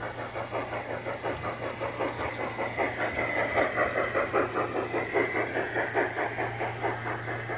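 G-scale garden-railway steam locomotive running past, chuffing in a fast, even rhythm over a steady hum, loudest in the middle as the train comes closest.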